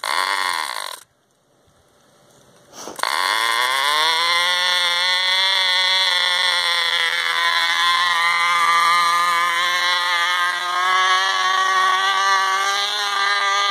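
Cox toy trike's tiny model two-stroke glow engine. It runs briefly, falls in pitch and dies about a second in; after a second and a half of quiet it catches again near the three-second mark, rising in pitch and then holding a steady high-pitched buzz.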